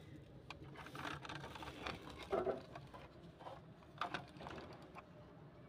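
Small plastic toy garbage truck pushed by hand over gravel and a wooden board: faint scattered clicks and scrapes from its wheels and body, with a few louder knocks.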